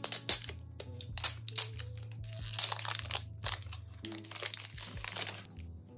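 Plastic shrink-wrap crinkling and tearing as it is picked and peeled off a small tin case, in quick irregular rustles and crackles.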